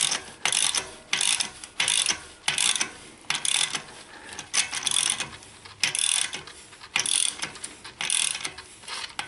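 Small ratchet handle on a cassette lockring tool clicking in short bursts, about two a second, with each back-and-forth stroke as an SRAM XD cassette is threaded onto its driver.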